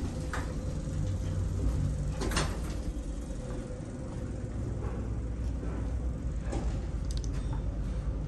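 Sliding doors of an Otis Elevonic 411M lift moving over a steady low hum, with a sharp knock about two seconds in.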